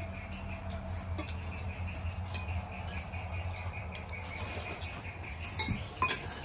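Steady high chirring of insects such as crickets over a low steady hum, with a few light clicks of spoons against bowls and plates.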